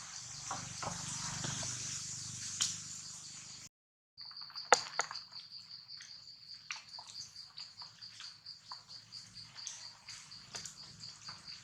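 A hiss of noise for the first few seconds, cut off abruptly. Then an insect chirps steadily in a high, even pulse of about four a second, with scattered sharp clicks over it.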